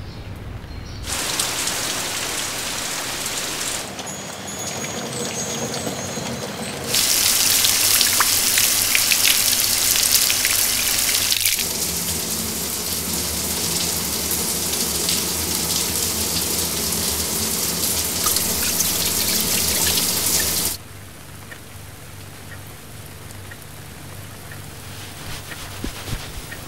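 Shower spray running and splashing, a steady rushing hiss whose level jumps up and down several times. It is loudest from about seven to twenty seconds in, then drops sharply to a low hiss about twenty-one seconds in.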